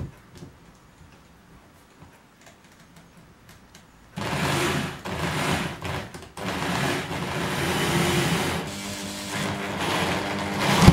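Handheld electric drill whirring in several runs with short pauses, driving a hook screw into the ceiling; it starts about four seconds in after a few small clicks of handling.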